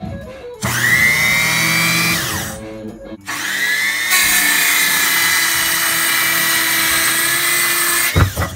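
Restored 6-inch aluminium-body worm drive Skilsaw starting with a rising whine, running briefly and winding down, then started again. It cuts through a wooden board, the sound louder and harsher for about four seconds, before it stops near the end.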